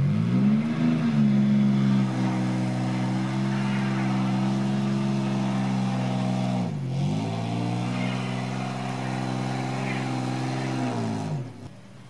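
Car engine revving hard and held at high revs while the drive wheels spin in deep snow as the car tries to pull out. It drops briefly about seven seconds in, revs up again, and falls away shortly before the end.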